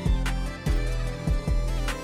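Background music with a steady beat: plucked and sustained instrument notes over regular bass drum hits.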